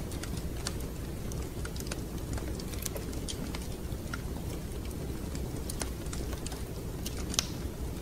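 Fireplace crackling: scattered sharp pops and snaps over a steady low rumble, with one louder pop near the end.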